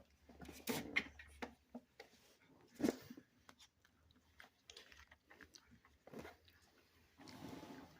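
Four-week-old Rottweiler puppies being handled and moving about on a weighing scale: faint, scattered clicks, knocks and scuffles, with the loudest knock about three seconds in and a short scuffle near the end.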